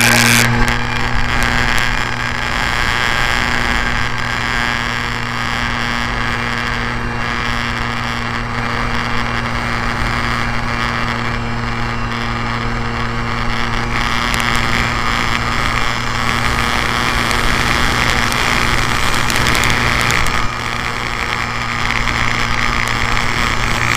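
Motor of an RC Cessna 182 model plane running steadily in flight, a continuous low hum, with air rushing over the wing-mounted camera's microphone. The level dips briefly about twenty seconds in.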